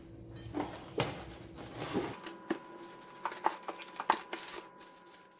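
Thin plastic food bag crinkling and rustling as a ball of dough is pushed into it, an irregular run of light crackles that grows busier about two seconds in.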